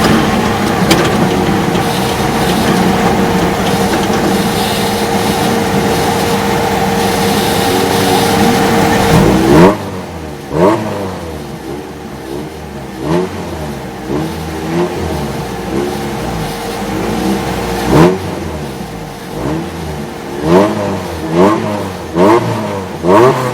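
Off-road race vehicle engines running in a steady loud drone. About ten seconds in, an engine is revved hard, followed by a dozen or so quick throttle blips, each a short rise and fall in pitch, coming closer together near the end.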